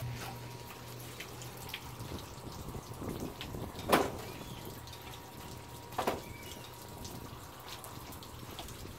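Water dripping and splashing, with two louder sharp splashes about four and six seconds in, over a low steady hum.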